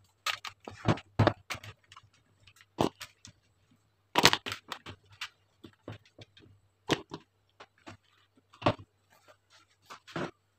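Handfuls of fresh cherries being taken from a plastic bowl and dropped into another bowl: an irregular string of light knocks and clatters, a few of them sharp.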